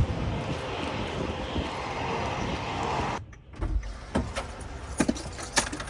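Steady vehicle background noise, then after an abrupt cut a few separate sharp clicks and knocks.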